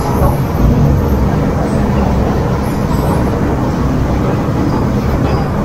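Steady rumble and noise of a crowded MTR M-Train carriage, with a low steady hum underneath.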